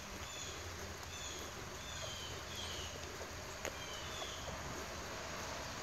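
Quiet outdoor ambience: a steady low rumble and hiss with scattered faint, high, short chirps, and a single small click about three and a half seconds in.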